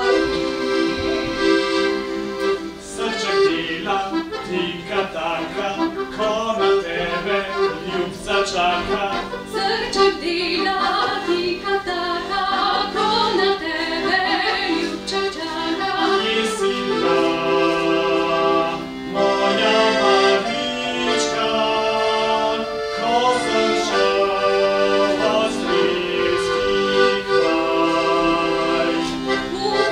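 Accordion playing a tune, quick runs of short notes over held chords.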